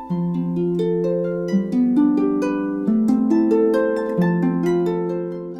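Harp music: a flowing run of plucked notes, several a second, each left ringing under the next, fading away near the end.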